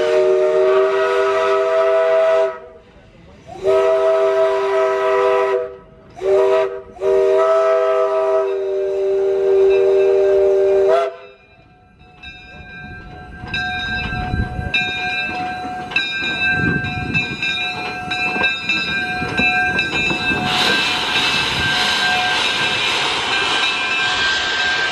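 Steam locomotive whistle, several tones sounding together, blown in the grade-crossing pattern of two long blasts, a short and a long. Then evenly spaced ringing strikes, about one a second, as the engine approaches, and a loud steam hiss as it passes close near the end.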